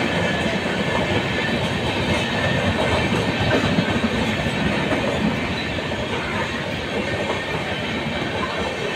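Indian Railways express passing close by at speed, its LHB passenger coaches running over the rails with a steady rumble and clatter of wheels.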